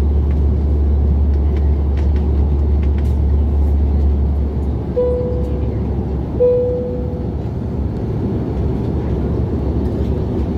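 Airliner cabin noise in flight: a steady rushing drone whose low hum drops off about halfway through. Two short cabin chimes sound in the middle, about a second and a half apart.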